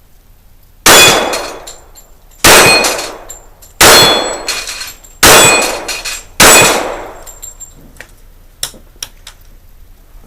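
Five shots from a Glock 41 .45 ACP pistol, fired at a slow, even pace about a second and a half apart, each echoing away before the next.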